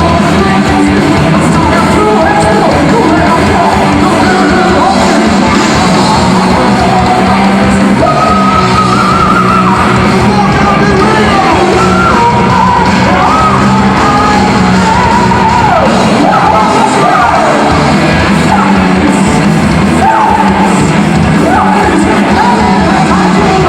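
Heavy metal band playing live at full volume, with distorted guitars, bass and drums. From about eight seconds in, a singer's voice rises over the band in gliding, held lines.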